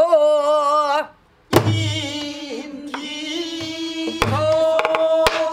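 A woman singing a pansori danga in long, held, wavering notes, accompanied by strokes of a stick on a buk barrel drum. After a short pause about a second in, a drum stroke comes with the next sung note. Another drum stroke follows near four seconds, and a sharp stick click comes near the end.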